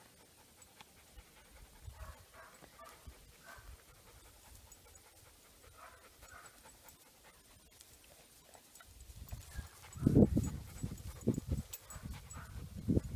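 A dog panting. It is faint at first, then loud and close from about ten seconds in, in quick irregular breaths.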